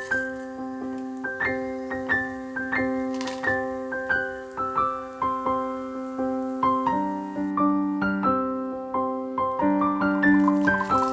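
Background piano music: a gentle melody of single notes, roughly two a second, over held lower chords. A faint high hiss comes in near the end.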